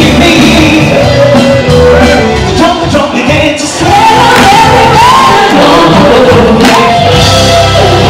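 Live rock music from a theatre stage show, heard from the audience: a band with drums and electric guitar, a singer's melody carried over it, cut together from more than one song.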